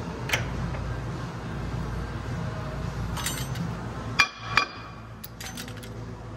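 Metal-on-metal clinks and knocks from a tool and the wheel hub being worked onto a forklift's brake drum and axle: a few light clinks, then two sharp knocks close together about four seconds in. A steady low hum runs underneath.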